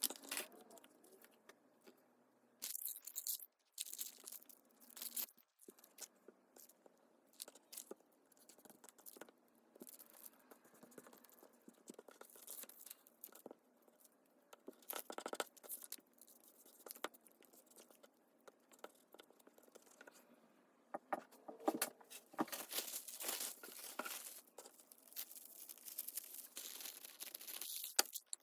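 Paper being handled, torn and crinkled, in irregular rustles with small clicks and taps, and a longer stretch of tearing and crinkling near the end.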